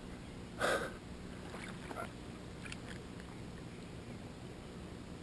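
Shallow lake water lapping and splashing at the shoreline while a large catfish is handled in it, with one brief louder sound less than a second in and a few faint clicks a little later.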